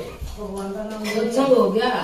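Women's voices singing a Haryanvi bhajan (devotional hymn), with long held notes.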